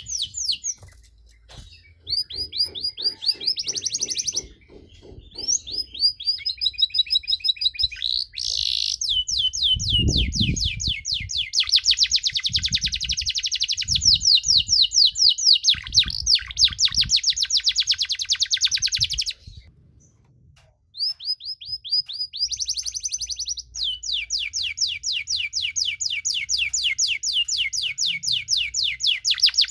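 Domestic canary singing long runs of rapid trilled notes, breaking off briefly a few times.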